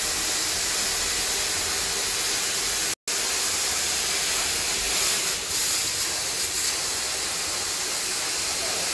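Portable CNC plasma cutter's torch cutting, a steady loud bright hiss that cuts out for a split second about three seconds in.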